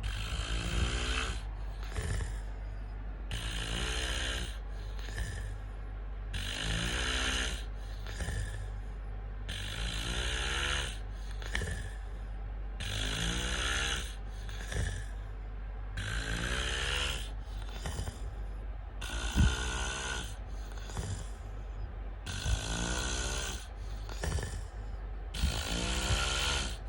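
A man snoring in deep sleep, about one snore every three seconds: each breath a rattling snore paired with a breathy rush of air, very regular.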